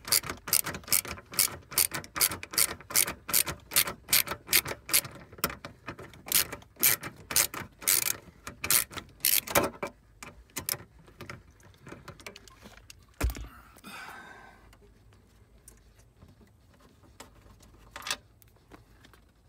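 Ratcheting driver with a 7 mm socket clicking in a fast, even rhythm, about three clicks a second, as a trim screw is backed out; the clicking stops about halfway through. Afterwards there is a single knock and a little rubbing from handling.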